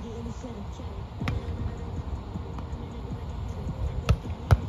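Volleyball being struck by hands and forearms during a grass rally: a sharp smack about a second in, then two more close together near the end, the last the loudest.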